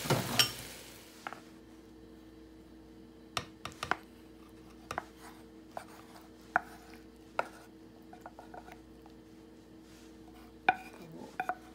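Sizzling in the frying pan fades away within the first second after the heat is turned off. Then scattered light knocks and scrapes of a wooden spatula against the pan and a ceramic bowl as the egg-and-chicken topping is slid onto rice.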